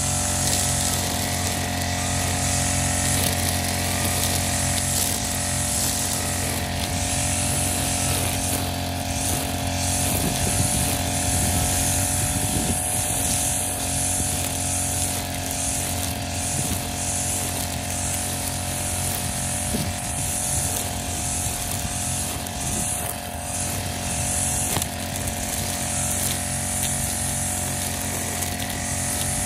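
Backpack brush cutter's small engine running at a steady speed while its cutting head works through tall grass.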